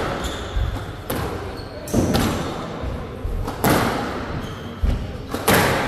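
Squash rally: the ball cracks off rackets and the court walls, a sharp hit about every second, each ringing in a large echoing hall.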